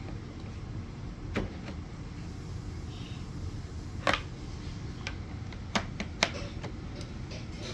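Plastic vacuum cleaner parts being handled and fitted: a handful of separate sharp clicks and knocks, the loudest about four seconds in, over a steady low rumble.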